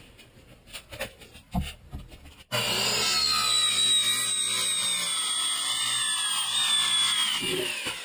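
Handheld circular saw cutting off the end of a garage door panel. After a few light handling knocks, the saw cuts in abruptly about two and a half seconds in and runs steadily under load, its whine slowly falling in pitch, then fades near the end.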